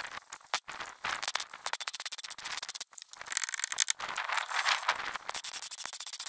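MIG welder crackling in short bursts with brief pauses between them, tack-welding a steel repair piece into a car's door pillar.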